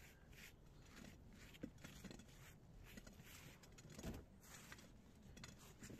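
Near silence, with faint scuffing of gloved hands in loose soil and two soft knocks, the first under two seconds in and the second about four seconds in.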